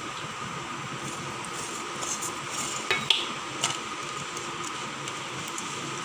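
Silicone pastry brush spreading oil around a metal cake tin, with a few light knocks and clinks of the tin about halfway through, over a steady background hum.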